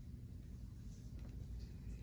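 Quiet room tone: a low, steady hum with nothing else standing out.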